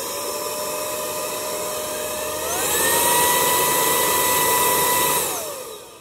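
Orfeld cordless stick vacuum's motor running with a steady whine. About two and a half seconds in it steps up in pitch and loudness, then winds down as it is switched off near the end.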